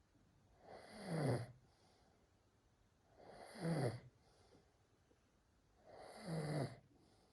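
A sleeping cat snoring: three snores about two and a half seconds apart, each swelling louder and sliding down in pitch before it stops.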